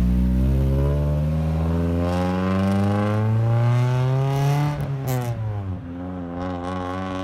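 A large vehicle's engine accelerating on the street, its pitch climbing steadily, then dropping briefly at a gear change about five seconds in before holding steady.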